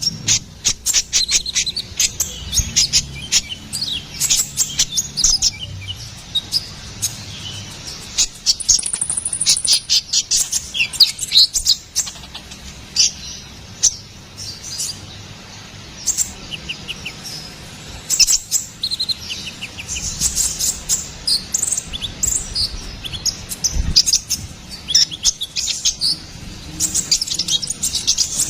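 Sunbird of the kind kept in Indonesia as the konin or kolibri ninja, singing a fast, busy song of sharp high chirps and short trills in quick bursts with brief pauses.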